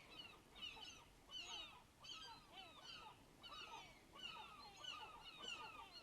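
Faint background of a flock of birds calling: many short calls overlapping without a break, each bending up and down in pitch.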